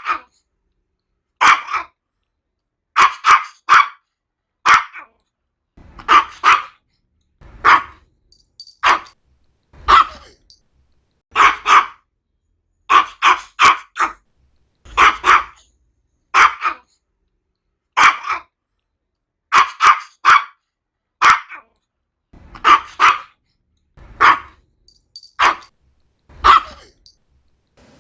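Maltese dog barking: short, sharp, high barks, singly and in quick pairs or threes, roughly one burst every second or so, with silence between them.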